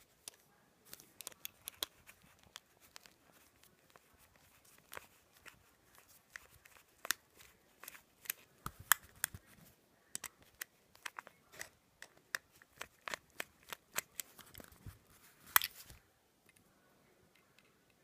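Screwdriver working the small slotted screw out of the brass body of an antique Miller keyless padlock, with irregular sharp metal clicks and scrapes that stop about two seconds before the end.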